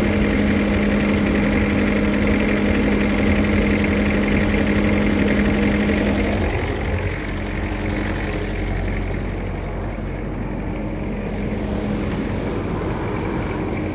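Van engine idling steadily with a low, even hum. From about six and a half seconds in it sounds quieter and further off, still idling.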